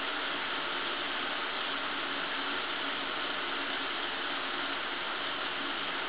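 Shower running: a steady, even hiss of falling water spray.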